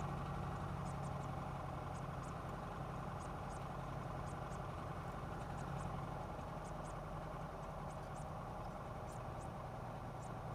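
Cessna 172B's Continental six-cylinder engine running steadily at low power, a constant drone.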